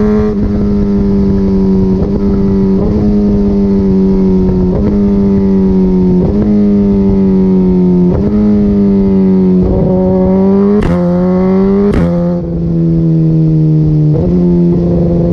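Suzuki GSX-R1000R inline-four with an Akrapovic Evolution full exhaust, running loud at fairly steady revs, with the note briefly broken every second or two. Near the end the exhaust gives two sharp pops about a second apart, and the engine note settles a little lower after them.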